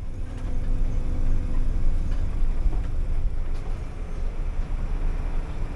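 Bus running: a steady, dense low engine and road rumble, with a faint steady hum over it for the first couple of seconds.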